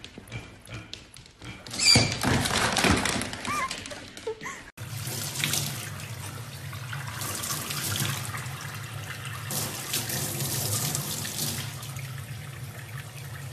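A tap running into a stainless steel sink, water splashing steadily. Before that, during the first four seconds or so, a louder stretch of irregular noise whose source is unclear.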